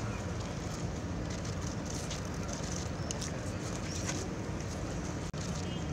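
Outdoor ambience: a steady low rumble with scattered short, high chirps and clicks, and a brief dropout about five seconds in.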